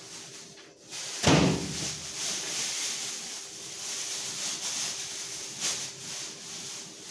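A single sharp knock or bang about a second in, then a steady hiss with a faint hum beneath it.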